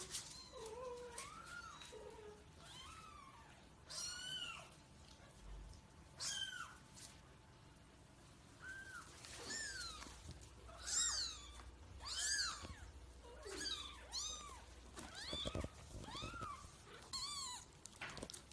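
Kittens mewing over and over: short, high-pitched calls that rise and fall, about one every second, with a few lower calls near the start.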